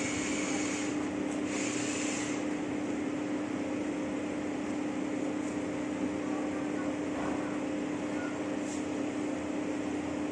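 A steady mechanical hum holding one constant low tone over an even background hiss.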